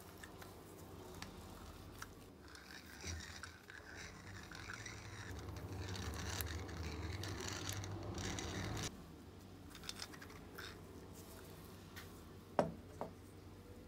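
An antique wooden pepper grinder's crank is turned, and its rusty grinding mechanism scrapes and rasps for several seconds before stopping abruptly. A few small clicks follow, then a sharp knock and a lighter one as the grinder is set down on a wooden workbench.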